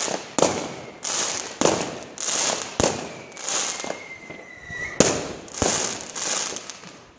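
Fireworks going off in rapid succession: a sharp bang roughly every half second to second, each followed by a hissing crackle as it fades. A faint, thin whistle rises slightly in the middle.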